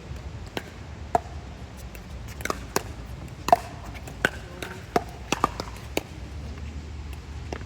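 Pickleball paddles striking the plastic ball in a rally: about ten sharp pops at uneven spacing, some louder and some fainter, bunched in the middle seconds. A steady low rumble of wind on the microphone runs underneath.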